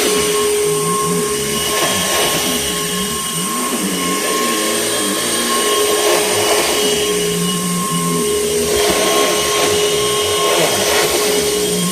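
2004 Panasonic upright vacuum cleaner running: a steady motor whine over rushing air, with a lower tone that rises and falls every second or so.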